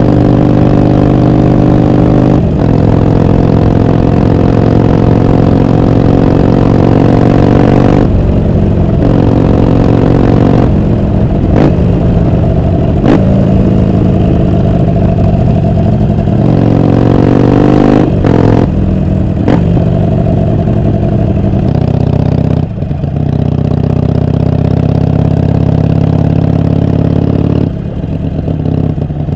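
2016 Harley-Davidson Forty-Eight's 1200 cc V-twin running loud through a newly fitted aftermarket muffler under way. The pitch rises under throttle and breaks off briefly several times, as at gear shifts. In the last several seconds it settles into a steadier, lower note.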